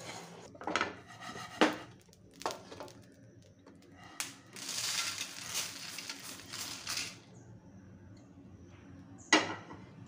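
Dry coriander seeds rattling in a frying pan as a wooden spatula stirs them, with several sharp knocks of the spatula against the pan. About four and a half seconds in, a rush of roasted seeds pours from the pan onto a steel plate for about two and a half seconds, and a single sharp knock comes near the end.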